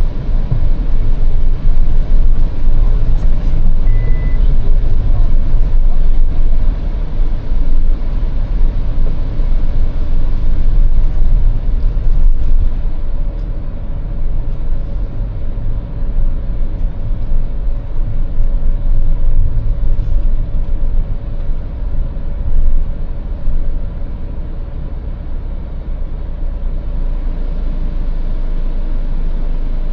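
Car running with a steady low rumble. It eases off about halfway through and settles to a quieter, even hum near the end.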